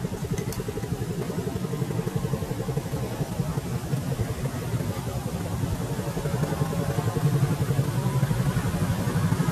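A motor running steadily, a low drone with a fast pulsing flutter, growing a little louder toward the end.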